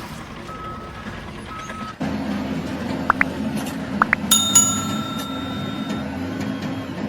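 A bell-like metallic ring that starts suddenly and fades over about a second and a half, preceded by four short rising chirps, over a steady low hum.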